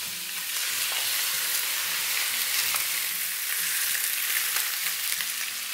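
Cubes of raw lamb shoulder sizzling and crackling in hot olive oil in a skillet over medium-high heat as they start to sear, with a wooden spatula pushing them about in the pan.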